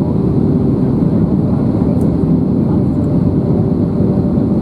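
Steady cabin roar inside an Airbus A320neo airliner on approach with flaps extended, heard from a window seat over the wing. The low, even rumble carries a faint steady hum and does not change through the moment.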